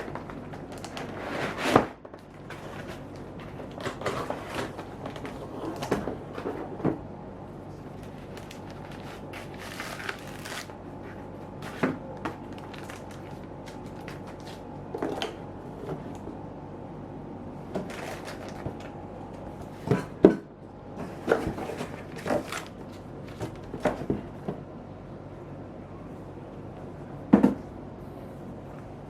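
Laptop and its packaging being handled: scattered knocks, taps and rustles, the loudest about two seconds in, about twenty seconds in and near the end, over a steady low hum.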